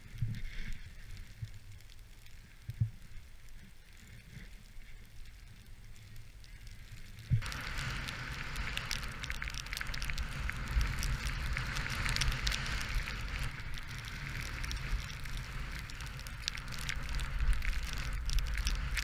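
Snowboard sliding through snow, with wind rumbling on the action camera's microphone: a soft, muffled hiss with a few dull thumps while riding deep powder, then, after a cut about seven seconds in, a louder steady scraping hiss of the board on a packed groomed run.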